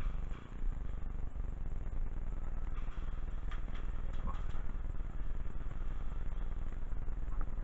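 Steady low rumble on a player-worn camera's microphone while the player walks, with a few faint clicks about three to four seconds in.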